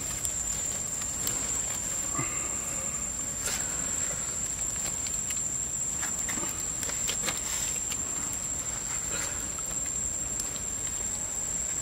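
Insects chirring in the forest: one steady, high-pitched unbroken tone, with scattered faint clicks from the ribs being handled on the stick.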